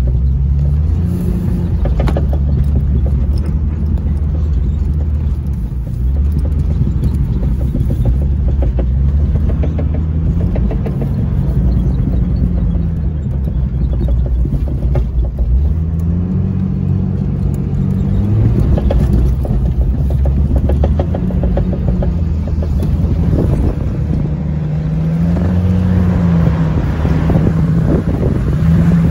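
Jeep Cherokee XJ's engine running while driving a rough dirt trail, heard from inside the cabin; its pitch rises and falls over and over as the throttle comes on and off. Many short knocks and rattles from the bumpy ride come through the body.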